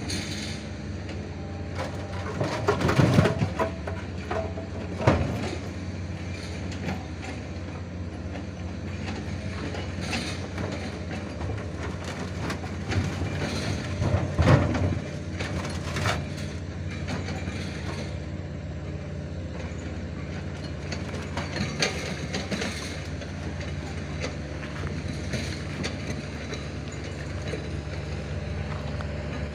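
Mini excavator's diesel engine running steadily while it climbs onto a truck bed, with clanks and knocks from its tracks and bucket against the bed several times, loudest about 3, 5 and 14 seconds in.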